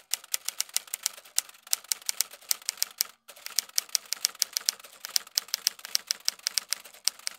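Typewriter sound effect: a rapid run of sharp key clacks, several a second, with a brief pause just after the midpoint, matching on-screen text being typed out letter by letter.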